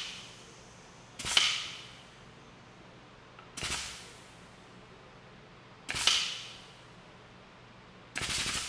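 Hydraulic press loading a cylinder head stud toward its limit at about 9,000 PSI: four sharp metallic cracks about every two and a half seconds, each fading over about a second, over a faint steady hum.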